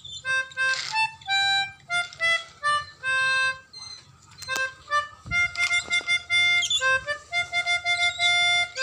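Basuri telolet horn, a multi-tone bus horn, playing the telolet melody in a run of short honked notes mixed with some longer held ones.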